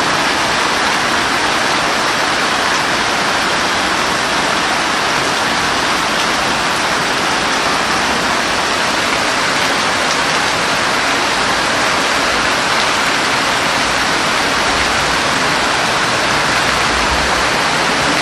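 Steady heavy rain falling, a dense, even hiss that never lets up.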